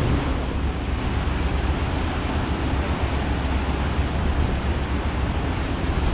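Steady rush of wind and water over a low, even engine rumble: a ferry under way.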